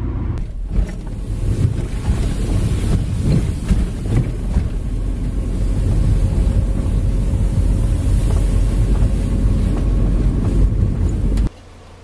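Car driving along a gravel road: a loud, steady low rumble of tyres and engine, with wind buffeting the microphone. It cuts off suddenly near the end.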